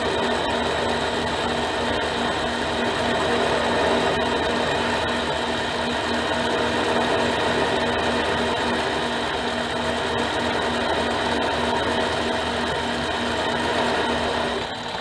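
Harbor Freight mini lathe motor and spindle running at about 450 RPM, with the power feed and gear train disengaged, while a lathe tool takes a turning cut of about 0.05 inch in steel. The running is a steady mechanical hum that drops slightly just before the end.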